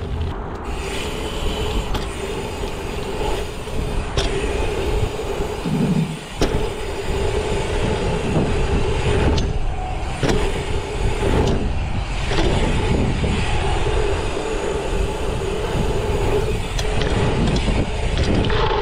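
Dirt jump bike's knobby tyres rolling over gravel and the asphalt pump track, a continuous rumble with a steady hum, with wind rushing over the camera microphone. Scattered knocks from the bike hitting bumps and rattling.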